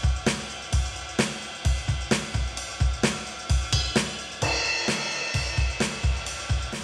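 Drum kit playing a steady beat: kick and snare hits about twice a second with hi-hat and cymbals, a cymbal ringing out about halfway through. The drums are driven hard through a compressor plugin, so they sound dense and saturated.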